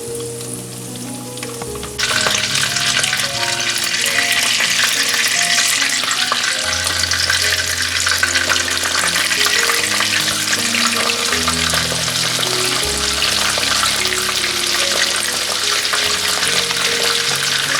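Battered chicken cutlets shallow-frying in hot oil: a steady, dense sizzle that turns abruptly louder about two seconds in. Soft background music plays underneath.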